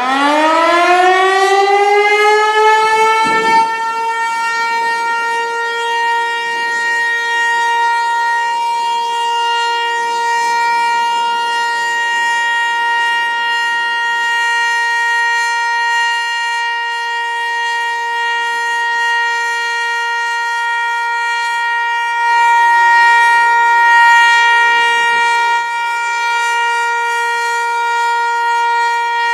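Federal Signal Eclipse 8 electronic outdoor warning siren sounding its monthly test. The tone winds up quickly in the first couple of seconds, then holds one steady pitch. Its loudness swells for a few seconds about twenty-two seconds in.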